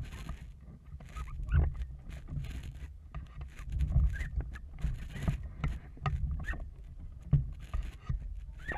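Wind gusting on the boat-mounted microphone as a low rumble, with scattered knocks and rustles from a Feva sailing dinghy's hull, sail and rigging as the crew shift about aboard.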